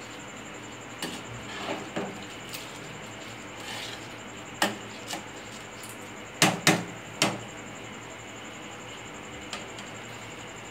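Perforated metal skimmer spoon clinking and scraping against a metal cooking pot while stirring rice: scattered sharp knocks, with the loudest cluster of three about two-thirds of the way through.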